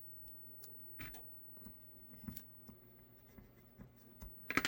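Faint handling noises of small workshop pieces: light scrapes and scattered soft clicks, with a sharper double click near the end.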